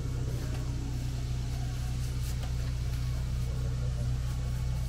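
A steady low hum at an even level, with no gunshots.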